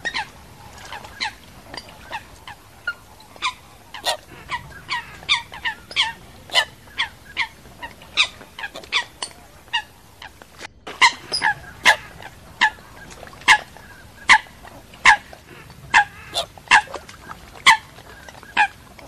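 Coots calling from the water in a long run of short, sharp calls, about two a second, with a brief break about eleven seconds in.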